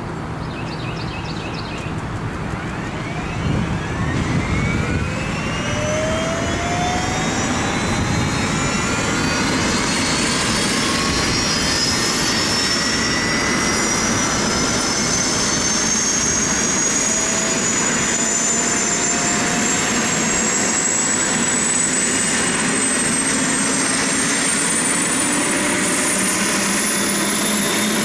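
Aircraft turbine engine spooling up: a high whine that rises slowly and steadily in pitch over a loud engine rumble.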